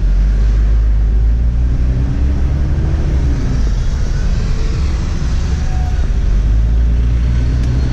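A car's engine and tyre rumble, heard from inside the cabin while driving. It is a steady low drone, with the engine note climbing and easing off about two to three seconds in.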